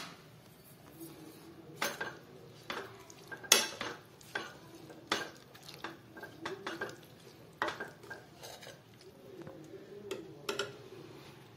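Steel ladle stirring a thick mix of cooked pulses in a nonstick kadai, with irregular clinks and scrapes against the pan about once a second.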